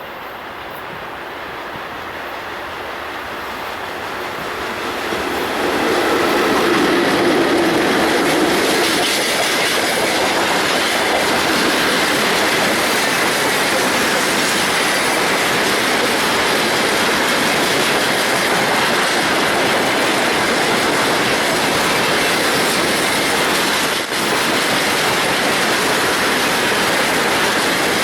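VL10 DC electric locomotive and its freight train passing. The rail noise swells over the first six seconds, then the wagons roll by in a loud, steady rush of wheels on rail with a thin high whine running through it.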